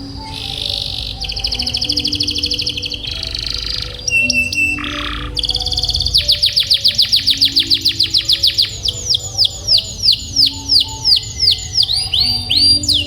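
Domestic canary singing a long run of trills. A fast buzzy roll comes first, then a short held note, then from about halfway a long series of repeated down-sweeping notes that space out toward the end.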